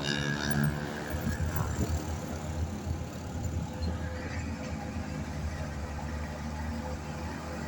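Old bonneted diesel lorry's engine running steadily with a low drone. A louder pitched note dies away in the first second.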